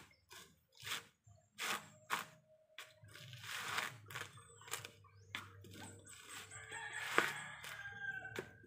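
Coconut being husked by hand on a spike: repeated knocks and the ripping of fibrous husk as it is torn away. A rooster crows in the background in the second half.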